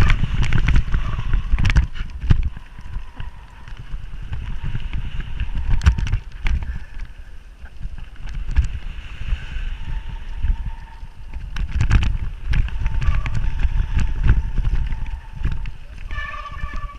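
Mountain bike riding over dirt jumps: wind buffeting the microphone and tyre rumble, with sharp knocks from landings, and the disc brakes squealing in a thin, high, steady tone held for several seconds in the second half.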